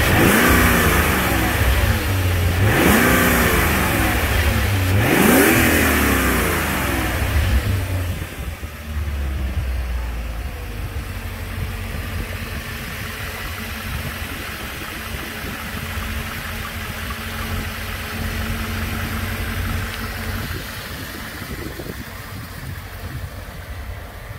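BMW 540i's 4.0-litre V8 engine revved in quick blips, two or three in a row, then settling to a steady idle from about eight seconds in.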